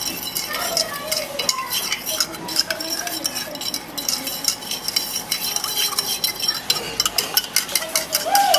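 A spoon stirring sugar into a drink in a steel jug, clinking quickly and repeatedly against the metal sides. The clinks come faster and closer together near the end.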